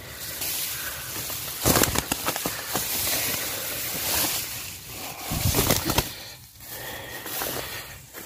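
Rustling of grass and the handling of the shot dove as a hand reaches in and picks it up, over a steady rush of wind on the microphone. There are two louder bouts of rustling and bumps, about two seconds in and again around five and a half seconds in.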